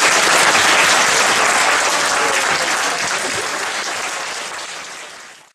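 Audience applauding, a dense patter of many hands clapping, which fades away over the last two seconds.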